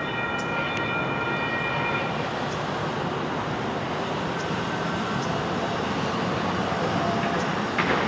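Light rail train running at a road crossing, a steady rumble. Over it ring the crossing's electronic bells, which stop about two seconds in, after the gates are down. A brief louder burst comes near the end.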